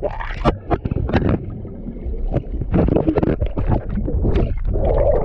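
Water splashing and churning close to the microphone in a rapid, irregular run of splashes over a low rumble.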